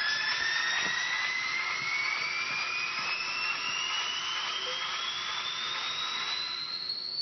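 A high whine climbing slowly and steadily in pitch over a steady hiss, cutting off at the end.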